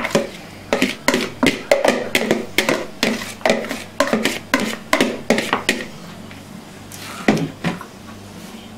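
Boiled eggs being grated on a hand grater over a salad: a run of short scraping strokes, about three a second, that stops after about six seconds, followed by two louder knocks.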